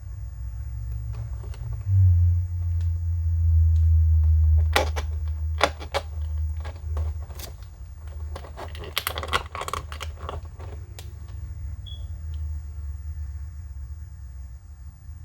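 Packaging being handled during an unboxing: a run of sharp clicks and rustles from about five to eleven seconds in, over a steady low rumble that is loudest in the first few seconds.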